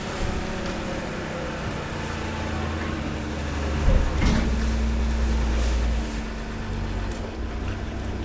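Hydraulic waste compactor running: a steady low hum from its motor and hydraulic pump. About four seconds in there is a sharp knock, and the hum grows louder for about two seconds under load, then eases back.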